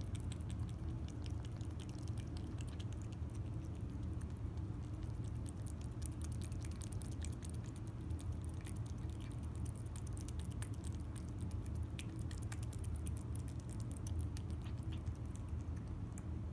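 A cat eating wet food from a bowl: a steady run of quick small wet chewing clicks over a low steady hum.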